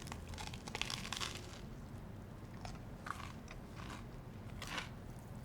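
Crunching of a crisp, butter-griddled sourdough sandwich being bitten and chewed: a run of crunches in the first second and a half, then scattered single crunches.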